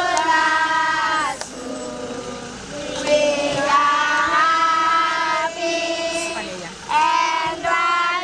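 Children singing a song together, with long held notes.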